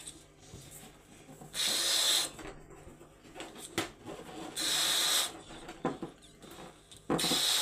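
Latex balloon being blown up by mouth: three loud, breathy rushes of air, about three seconds apart, with small rubber rustles between them.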